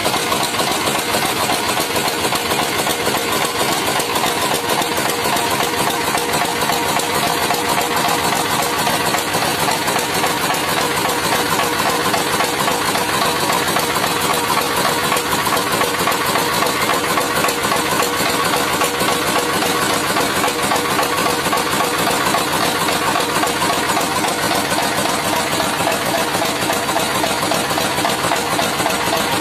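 Stationary diesel engine running steadily with a fast, even knock, belt-driving a rice huller that is hulling paddy as it is fed in.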